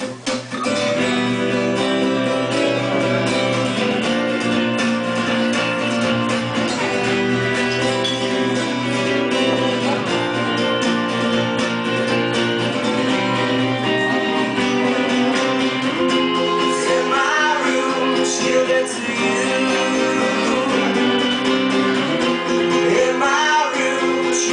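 Live band music led by guitars playing chords, steady and fairly loud, with a few gliding pitches in the last third.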